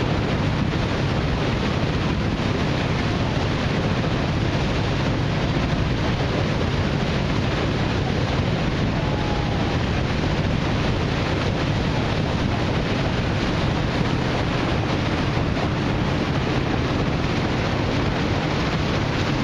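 Steady wind rushing over the microphone aboard a boat on open lake water, with water noise and a low, even rumble beneath it.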